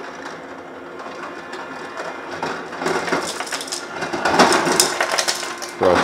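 Frigidaire refrigerator's through-door ice dispenser running in crushed-ice mode: the auger motor hums steadily while ice is crushed and clatters into a plastic cup. The crunching grows louder about halfway through.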